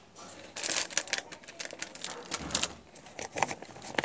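Close, irregular crisp clicks and crackles of hands handling a crinkly snack packet and a cardboard box of slate pencils, with a soft low thud about two and a half seconds in.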